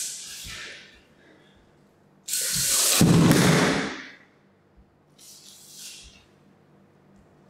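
Sheets of paper rustling and being pushed over a studio floor in short noisy bursts. The loudest is a rush lasting about a second and a half, starting a couple of seconds in, with a heavy low thud-like part; a fainter rustle follows near the end.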